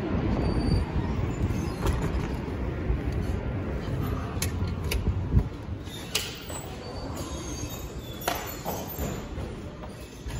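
Wind rumbling on the microphone over outdoor city noise, with a few sharp clacks and knocks of heavy glass entrance doors about four to six seconds in. The rumble then eases.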